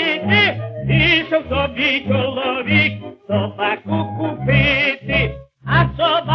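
A tenor singing a Ukrainian folk song with a strong vibrato over a small orchestra's steady accompaniment, played from a 1928 Columbia 78 rpm record. The music breaks off briefly about five and a half seconds in.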